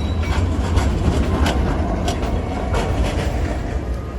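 Tram running past on the street: a steady low rumble with a few scattered clacks from the wheels and rails.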